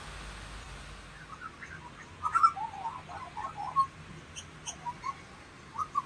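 Lorikeets chattering in quick clusters of short chirps and squawks, starting about a second in, over a faint steady hiss.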